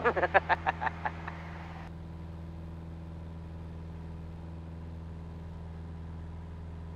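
Piper Cherokee Warrior's four-cylinder Lycoming engine and propeller droning steadily in cruise, heard inside the cockpit. A voice speaks briefly over it in the first two seconds.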